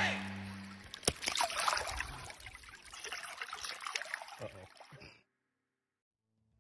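Water trickling and splashing around a landing net dipped in a river, with one sharp knock about a second in; it cuts off suddenly about five seconds in. Background music fades out at the start.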